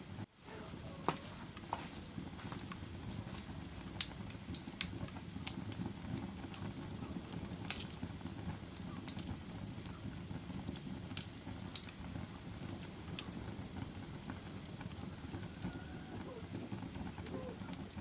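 A fire burning with a steady low rumble and scattered sharp crackles and pops, the loudest about four and eight seconds in.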